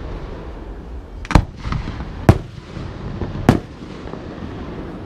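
Aerial firework shells bursting overhead: three sharp bangs about a second apart, the middle one loudest, with a couple of smaller pops between them.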